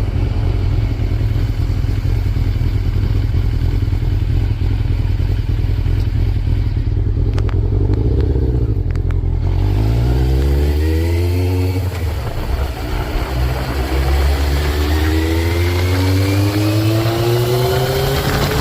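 Motorcycle engine running on the road under a steady low rumble, then accelerating: its pitch climbs about ten seconds in, dips briefly, and climbs again for the last few seconds.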